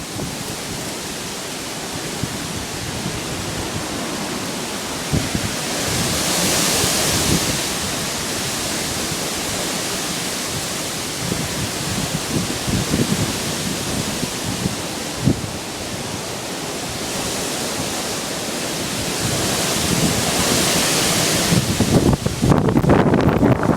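Hurricane Sandy's winds blowing hard and steadily, with gusts swelling twice, and heavy wind buffeting on the microphone near the end.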